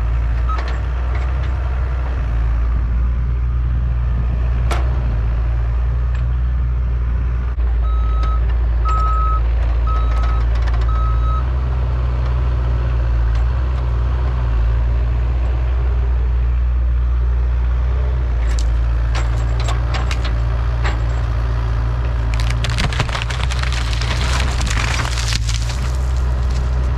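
Mini excavator engine running hard and steady under load as it pushes against a large juniper tree, with its travel alarm beeping, four beeps in a row about eight seconds in. From about eighteen seconds in comes a growing run of sharp cracking and snapping, thickest near the end, as the tree's wood and branches break and it gives way.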